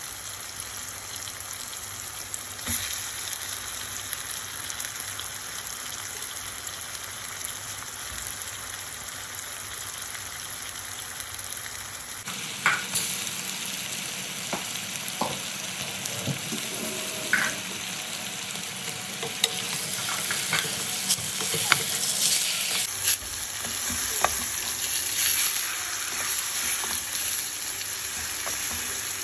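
Marinated chicken pieces sizzling in a hot stainless steel pan. From about halfway, a wooden spatula stirs them, knocking and scraping against the pan now and then.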